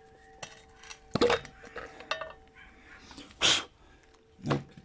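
Clicks and knocks of shock absorber and dust boot parts being handled, with a loud clank a little over a second in and a short hiss about three and a half seconds in, over a faint steady hum.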